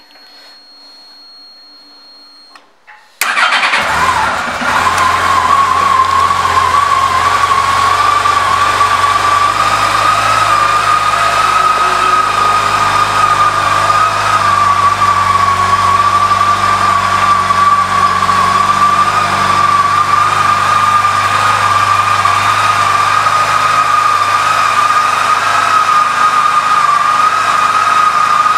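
Yamaha FJR1300A's 1298 cc inline-four engine started with the key about three seconds in, catching at once and settling into a steady idle with a steady high whine over it.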